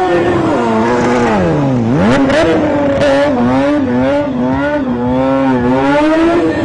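Sport motorcycle engine revving as the rider works the throttle. The pitch falls to a low point about two seconds in, jumps back up, then wavers up and down with quick throttle changes.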